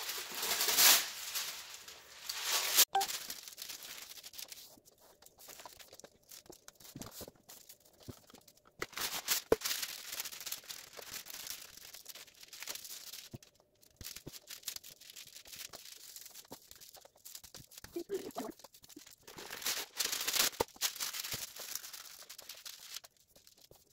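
Wax paper crinkling and rustling in irregular bursts as a sheet is handled and slid under a jigsaw puzzle, loudest near the start and again about halfway and near the end, with quieter stretches between.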